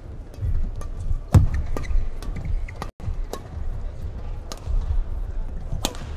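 Badminton rally: sharp racket strikes on the shuttlecock come in quick succession, the loudest about a second and a half in, over a steady thudding of footfalls on the court. The sound cuts out for an instant about three seconds in.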